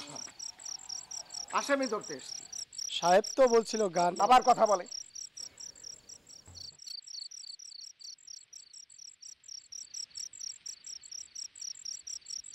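Crickets chirping in fast, even pulses, several a second. A person's voice is heard briefly about a second and a half in, and again for a couple of seconds about three seconds in.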